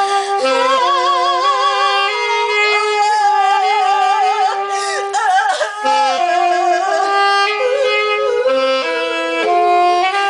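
Live music: a woman singing with wide vibrato, with a saxophone playing held notes that step from pitch to pitch.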